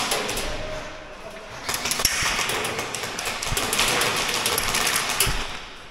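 Rapid airsoft gunfire: a fast, dense run of sharp clicks that starts about two seconds in and stops just before the end.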